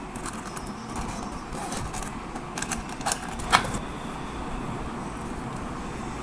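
Packaging being handled: crinkling and a run of light clicks and taps, with one sharper click about halfway through, over a steady low background hum.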